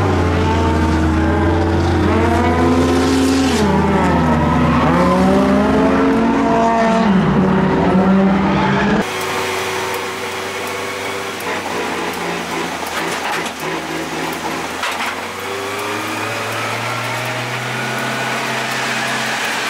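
Toyota AE86's dry-sump 4A-G four-cylinder engine running during break-in, heard from inside the car, its pitch repeatedly rising and falling as the revs change. About nine seconds in, the sound cuts to a quieter, steadier engine note that slowly climbs near the end.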